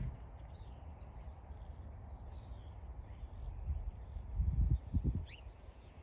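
Wild birds chirping and calling in short scattered notes, one a quick sliding whistle near the end, over a low rumbling noise on the microphone that swells in uneven bursts about two-thirds of the way in.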